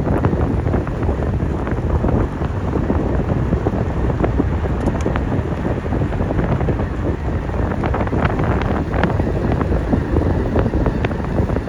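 Steady wind buffeting the camera microphone, with scattered crackles.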